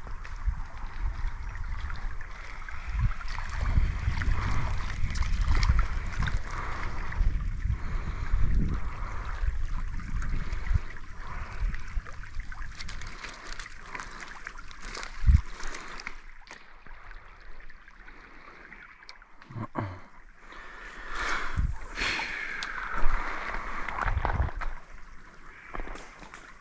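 Creek water running steadily, with low wind rumble on the microphone during roughly the first half and a few scattered knocks and rustles later on.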